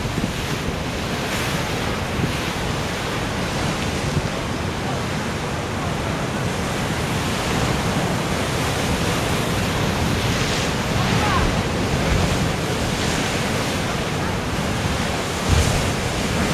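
Ocean surf surging into a channel in dark volcanic shoreline rock and crashing, throwing up spray, with wind buffeting the microphone. A sharp, louder slam of a wave comes near the end.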